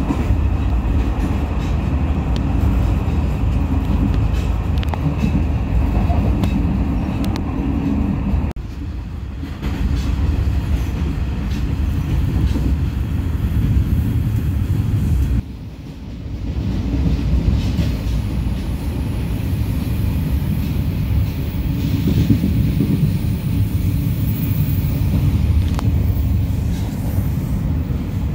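Train running on the rails: a steady low rumble of wheels and carriage, which dips abruptly twice, about a third of the way through and again past halfway.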